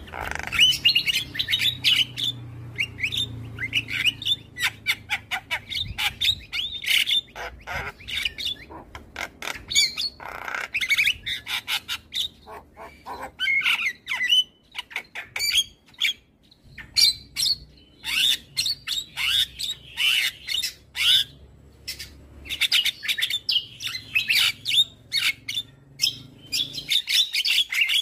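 Javan myna calling vigorously: a rapid, harsh run of squawks, chirps and clicking notes in bursts, with brief lulls between them.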